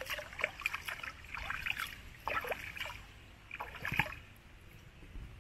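Water splashing and sloshing in a few short bursts, as from someone moving about in a lake's shallows.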